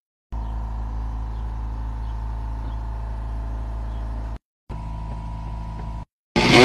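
A steady low machine hum with a few even tones, broken off twice by abrupt cuts. Near the end a Milwaukee cordless ratchet starts up, much louder than the hum.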